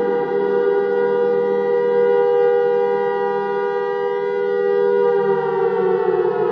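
Civil defense siren sounding a steady wail of two tones together, which begins to wind down, falling in pitch, about five seconds in.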